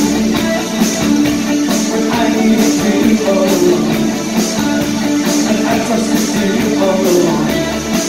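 New-wave rock band playing live: electric guitar, bass guitar and keyboard over drums, with a regular drum-and-cymbal hit about once a second.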